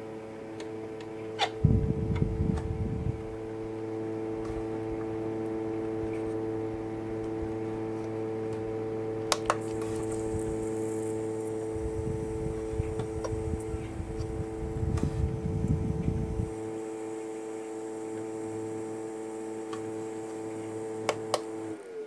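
Fan of a small battery-powered evaporative air cooler running with a steady whirring hum. Its louvres and buttons click a few times, there are two stretches of low rumble, and the hum cuts off at the very end as the unit is switched off.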